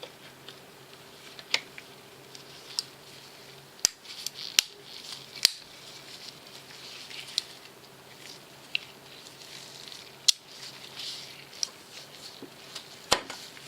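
Irregular light clicks and taps of small metal knife parts, screws and a screwdriver being handled while a folding knife is put together, with a few sharper clicks among them.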